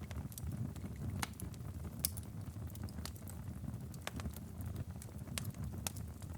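Wood fire crackling in a fireplace: scattered sharp pops over a low steady rumble, with one louder pop about two seconds in.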